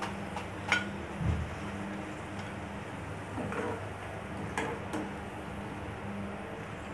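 Wire-mesh spider strainer clinking and tapping against a frying pan as fried potato fries are scooped out of the oil and set on a plate. There are a few sharp clinks, the loudest about a second in with a dull knock just after, and two more close together near the end, over a steady low hum.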